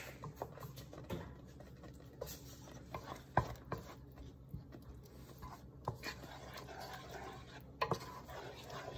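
A wooden spoon stirs a thick, creamy sauce in a stainless steel pot. The spoon knocks lightly against the pot's side a few times.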